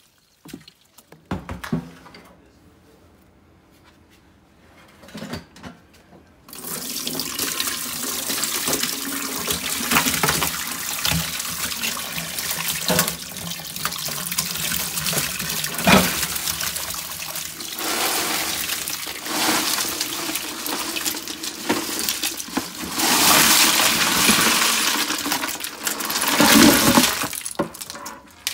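Water running from a tap into a stainless steel sink full of shrimp, a steady rush that starts about six seconds in and swells near the end. It follows a few short clattering knocks.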